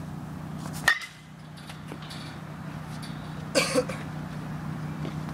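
A baseball bat strikes a ball about a second in, a sharp crack with a short ring. A second loud clatter comes about two and a half seconds later, over a steady low hum.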